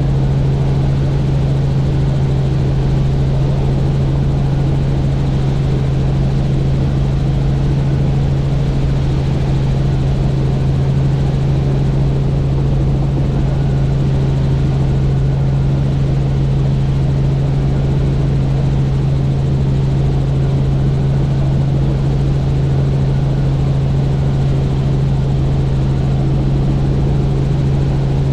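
Helicopter in steady flight, its rotor and engine making a loud, constant low hum that does not change.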